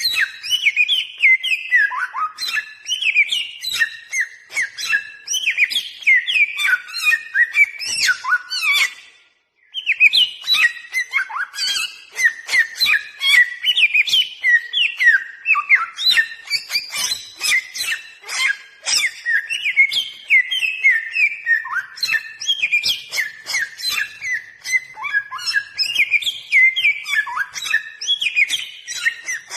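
Bare-throated whistler (samyong) singing a rapid, unbroken stream of short whistled notes that slide up and down. The song stops for under a second about nine seconds in, then carries on.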